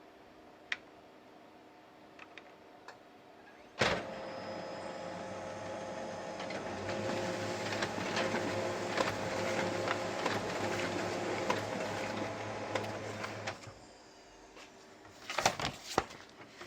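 HP LaserJet Enterprise M605dn laser printer: a sharp clunk, then its motors and mechanism run with a steady hum and fast ticking for about ten seconds before stopping, followed by a few clicks. The printer is running again after its power supply was repaired.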